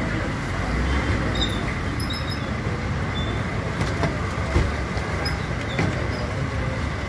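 Street traffic noise: vehicle engines running, with a low rumble, and a single thump about four and a half seconds in.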